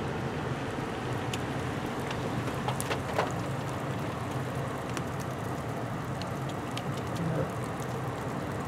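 Steady engine and road noise heard inside a car's cabin as it rolls slowly along a rough park road, with scattered small ticks.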